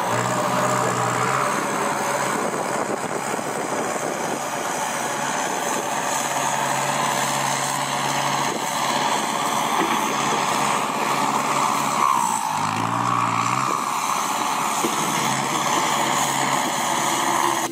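Kubota M6240SUH tractor's diesel engine running through a new aftermarket loud exhaust pipe: a steady drone, with a short rise in engine pitch about two-thirds of the way through.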